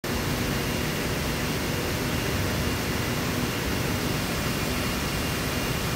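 Steady rushing noise of machinery or ventilation, unchanging throughout, with a faint high tone in it.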